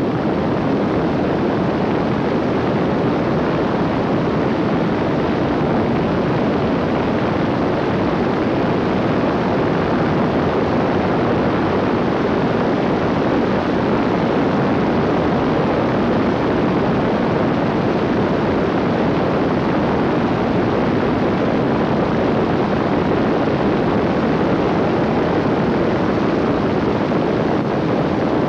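Steady drone of an Air Creation microlight trike's Rotax 582 two-stroke engine and propeller in flight, mixed with wind rush on the microphone.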